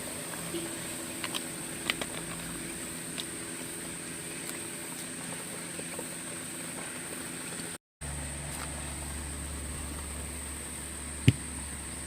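Steady high-pitched insect chorus, with a low hum and a few light clicks; there is a brief break about eight seconds in, after which the low hum is stronger, and a sharper click comes near the end.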